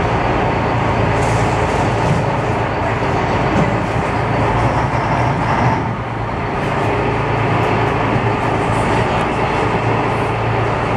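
Glass-bottom boat's engine running steadily, a constant low drone heard from inside the hull, with a haze of water and hull noise over it that dips briefly about six seconds in.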